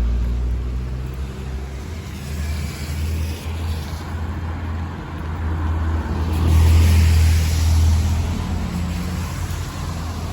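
Road traffic in the rain: a steady low rumble that swells about six to eight seconds in, with a rush of hiss as a vehicle passes.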